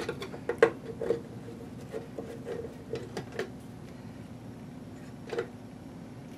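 Light metallic clicks and taps from a perforated sheet-metal transistor cover being handled and lifted off an amplifier's aluminium chassis bottom. There is a quick cluster of ticks in the first second, a few softer ones around the middle, and a single click near the end.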